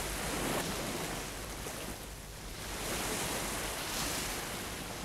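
Sea waves on open water, a steady rush that swells and ebbs every few seconds, with wind.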